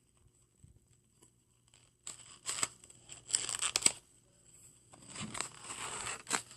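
Fidget spinner packaging being torn open by hand: two stretches of tearing and crinkling with a few sharp clicks, starting about two seconds in.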